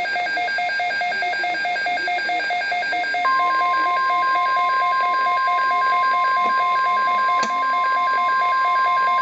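NOAA Weather Radio alert signalling a severe thunderstorm watch: rapid, evenly pulsed electronic beeping, and about three seconds in the long, steady warning alarm tone starts and holds under it. There is a brief click about seven and a half seconds in.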